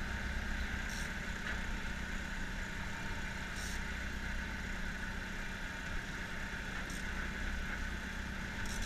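Fishing boat's engine running steadily, a constant low drone, with a few brief high hisses about one, four and seven seconds in.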